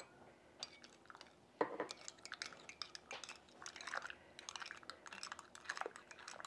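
A teaspoon clinking against a cup in quick, light clicks as honey is spooned into a cup of herbal tea, starting about a second and a half in.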